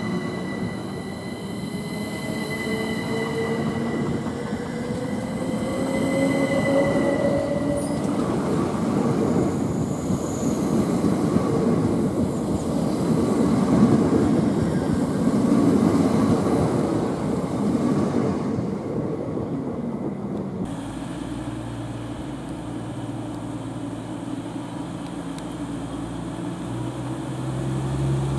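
Class 377 Electrostar electric multiple unit pulling away: its traction motors whine in several rising tones over the first eight seconds, then the rumble of its wheels on the track grows, loudest around the middle. About two-thirds through, the sound changes abruptly to a lower, steadier train hum.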